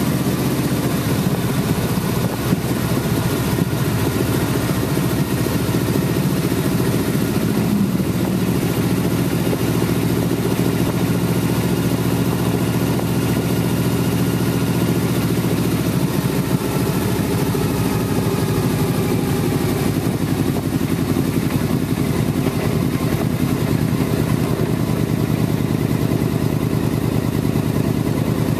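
Car engine running steadily with tyre and road noise, heard from inside the cabin while driving.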